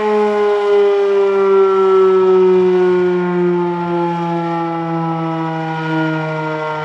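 Federal Signal Model 7 fire siren sounding, loud, its pitch falling slowly and steadily throughout.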